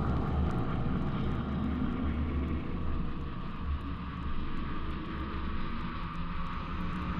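A steady low rumble with a faint hum above it.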